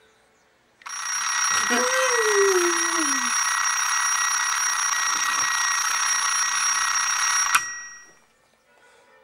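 Alarm clock ringing loudly for nearly seven seconds, then cut off suddenly with a click as it is switched off.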